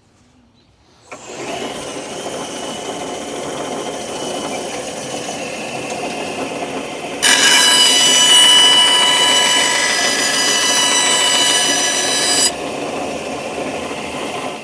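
Shopsmith bandsaw switched on about a second in and running steadily. From about halfway it cuts through the insert blank for some five seconds, much louder and with a whine, trimming it to size. Then it runs free again and is switched off near the end.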